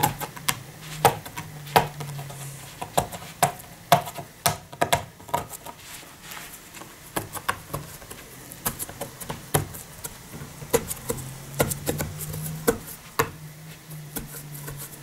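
A fingernail picking and scratching at the edge of a paper label stuck on a plastic shampoo bottle: irregular small clicks and scrapes, over a low hum that fades in and out.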